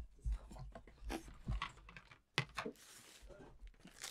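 Irregular handling noises: scattered knocks, taps and clicks, with a short crinkling rustle about two and a half seconds in.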